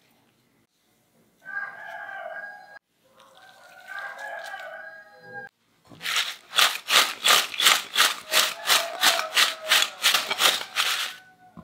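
Crisp fried potato sticks tossed in a glass bowl by shaking it, a rhythmic rattling swish of about three to four shakes a second through the second half. Before that, two drawn-out pitched calls sound in the background.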